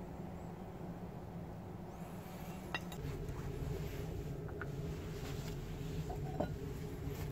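A few light metallic clinks of steel tools being handled and set down, three separate clinks with a brief ring, over a steady low workshop hum.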